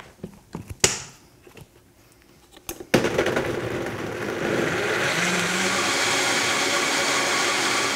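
A few clicks and knocks as the Vitamix blender's lid is fitted and its controls set, then about three seconds in the motor starts abruptly and blends chunks of pineapple and pear with coconut water, growing louder over the next two seconds and then running steadily.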